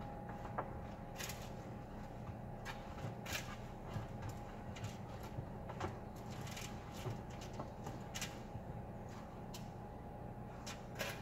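Aluminium foil crinkling and rustling, with broccoli florets shifting over it, in short irregular bursts as hands toss the florets around on a foil-lined baking sheet.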